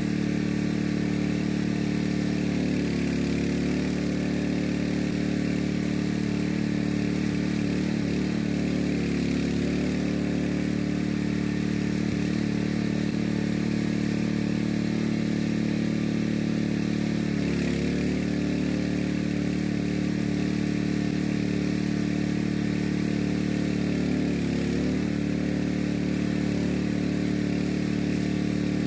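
A small pump engine running steadily at a constant speed.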